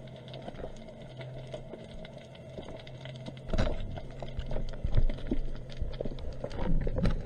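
Underwater sound picked up by a camera in its housing: a dense crackle of small clicks over a low steady hum, growing louder and rougher with knocks and rustling from about halfway.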